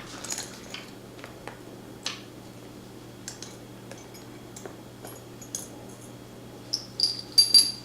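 Small metal clicks from a steel padlock and tools being handled over a faint steady hum, with a quick run of sharp, ringing metallic clinks near the end.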